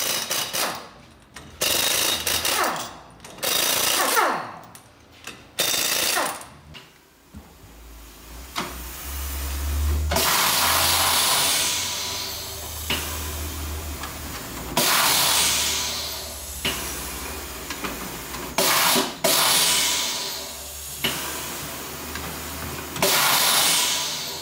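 Pneumatic impact wrench on a car's wheel nuts: about four short bursts, each falling in pitch as it winds down. Then, about seven seconds in, an electric tyre-changing machine's motor starts a steady low hum as a tyre is worked off its steel rim, with bursts of noise every few seconds.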